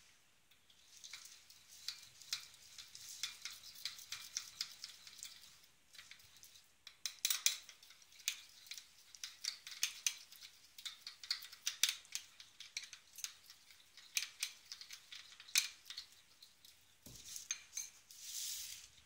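Metal spoon stirring blue food colouring into icing-sugar glaze in a small glass bowl, clinking against the glass in quick, repeated strokes, with a short pause about six seconds in.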